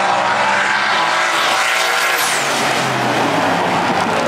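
Car engine running hard at high revs, its pitch shifting a little, with a thin high whistle falling away about two seconds in.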